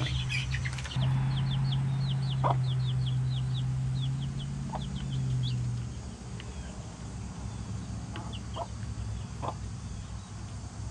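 Days-old baby chicks peeping in quick, high, thin cheeps, with occasional short low clucks from grown hens. The peeps come thick for about six seconds, then thin out. A steady low hum runs underneath and stops about six seconds in.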